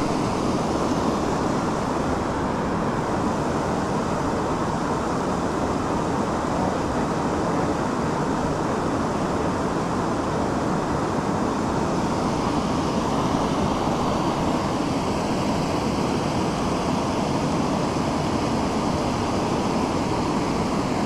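Steady rush of water from a small waterfall spilling into a stream pool, an even noise that doesn't change.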